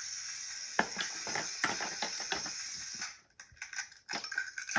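Battery-powered toy stove playing its electronic boiling/sizzling sound effect, a steady hiss through its small speaker, with plastic clicks and taps of toy pieces over it; the hiss cuts off about three seconds in, leaving a few more taps.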